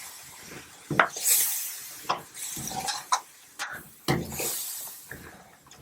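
A spoon knocking and scraping against a cooking pot while a curry of potatoes and long beans is stirred. There are about four sharp knocks roughly a second apart, with a hiss between them.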